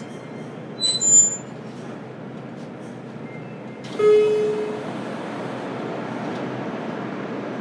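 Interior running sound of a JR Kyushu 303 series electric train. A brief high-pitched electronic tone sounds about a second in, and a short horn toot comes about four seconds in. After that the train's running noise grows louder and stays steady.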